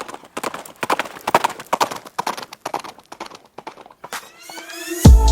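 Hooves clopping irregularly on hard, frozen ground, many steps overlapping. About four seconds in a rising tone swells, and loud electronic music with a heavy beat cuts in at the very end.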